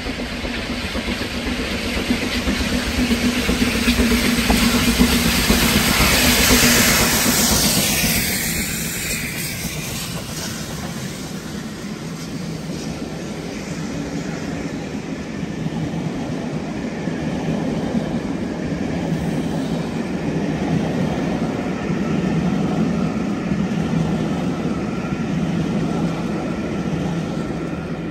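Two GWR Castle class four-cylinder 4-6-0 steam locomotives, double-heading a passenger train, passing at speed. The locomotives are loudest about six or seven seconds in, and then the string of carriages rolls past steadily.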